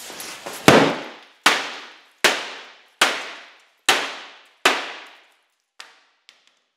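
A red mallet striking a sheet-metal car hood six times hard, about one blow every three-quarters of a second, each blow ringing briefly in the panel, then two light taps near the end. The blows are denting the hood on purpose.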